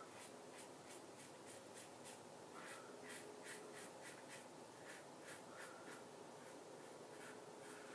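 Gillette Super Speed red-tip safety razor scraping through lathered stubble in quick short strokes, several a second. A faint, dry, rhythmic rasp of the blade cutting whiskers across the grain.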